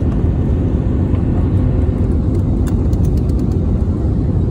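Steady low roar of engine and airflow noise inside the cabin of an Airbus A320-family jet on final approach, heard from a window seat over the wing, with a faint steady hum.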